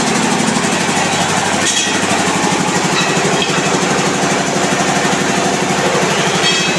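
Steady din of workshop machinery with a fast, even low pulsing, like an engine running, in a steel-fabrication shop where bars are being cut.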